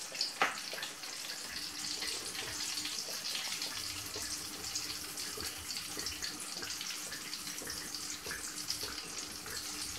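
Sugar being sifted by shaking a small mesh sieve: a soft steady hiss with many faint light ticks. A faint steady hum sits underneath.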